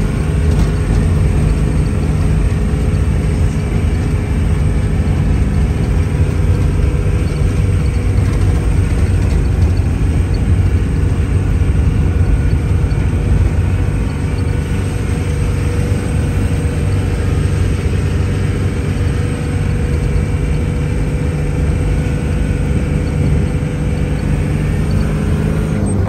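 Motor vehicle engine running steadily, with a continuous low hum and road noise.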